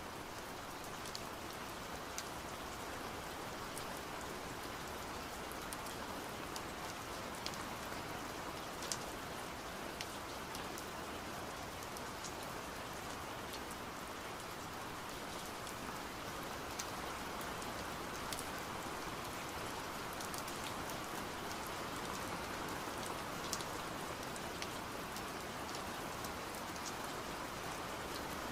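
Steady rain-like hiss with many faint scattered ticks and crackles, even in level throughout.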